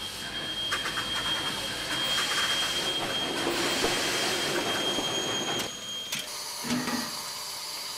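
Steam locomotive running with its train: a steady mechanical clatter and rush of noise that swells in the middle, then drops to a lower level about six seconds in.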